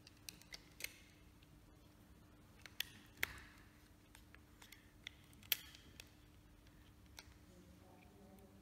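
Scattered small plastic clicks and taps from a wireless microphone's bodypack transmitter being handled and its controls worked, as its dead battery is checked, over a faint steady hum of room tone. The two loudest clicks come a little after three seconds and about five and a half seconds in.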